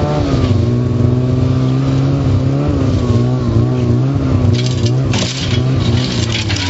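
Engine of a vehicle towing a steel-frame trail groomer through snow, running steadily; its pitch drops slightly just after the start and then wavers up and down. A few short rushes of noise come in about five seconds in.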